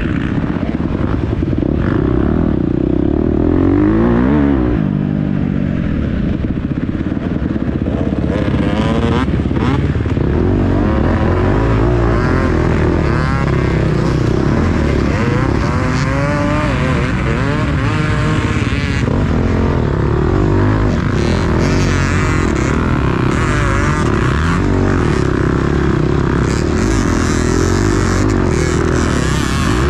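Dirt bike engine being ridden hard, its pitch rising and falling over and over with the throttle.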